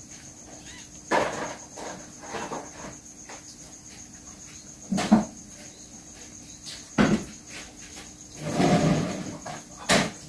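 A mother cat licking and shifting around her newborn kitten in a cloth-lined cardboard box: a handful of short soft knocks and rustles, with a longer rustle near the end. A steady high chirring runs underneath.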